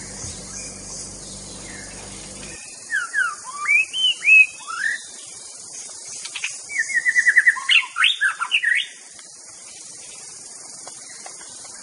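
Oriental magpie-robin singing: a varied string of clear whistled notes sliding up and down, starting about two and a half seconds in, with a quick run of about ten short repeated notes in the middle, and stopping a few seconds before the end.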